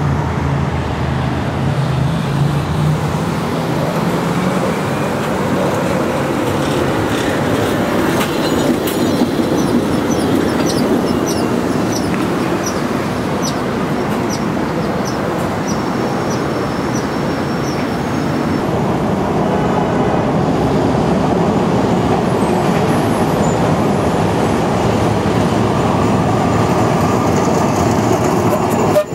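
Vintage electric streetcars rolling past close by on street rails: a steady rumble of wheels and running gear on the track, with a run of light high clicks about a third of the way in.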